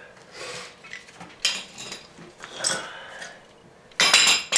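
Steel wrenches clinking against each other and against metal as they are handled and put back in their places: a few separate clinks with a high metallic ring, the loudest clatter about four seconds in.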